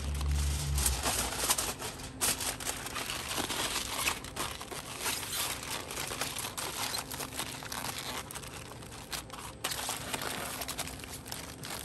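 Aluminum foil crinkling and crumpling as it is folded and pressed around a rack of ribs, in irregular rustles and crackles.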